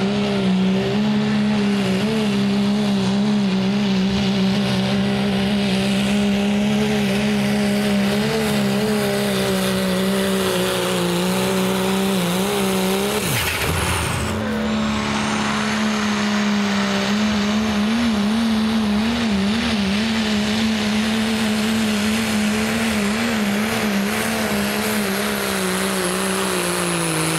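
Turbodiesel pickup engines held at full throttle under heavy load while pulling a sled, a loud steady high-revving drone. There is a short break about halfway, and a faint high turbo whistle near the end, when the engine pitch begins to fall.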